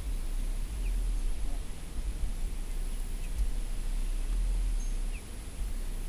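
Low, uneven rumble of wind on the microphone, with a few faint, short, falling peeps from young chicks.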